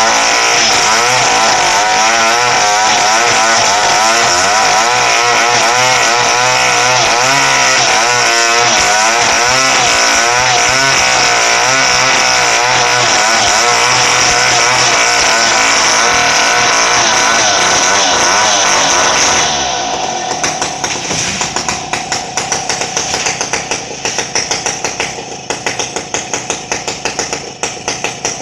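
Chainsaw running at high revs while cutting, its pitch wavering under load. About two-thirds of the way through it drops away, and a quieter run of regular sharp knocks follows.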